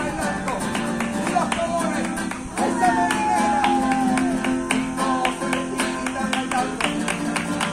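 Live flamenco: an acoustic flamenco guitar strummed and plucked in quick sharp strokes, with hand claps, and a singer's voice in long, falling, ornamented phrases, one starting about two and a half seconds in.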